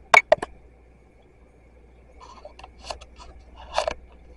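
Handling noises: two sharp knocks just after the start, then a stretch of soft rustling and clicks that grows louder toward the end.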